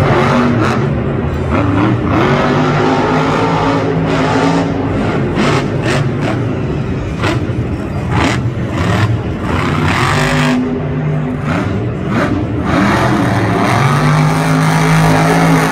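Monster truck's supercharged V8 engine revving hard again and again, its pitch rising and falling, with sharp bangs scattered through as the truck hits and lands off the dirt jumps.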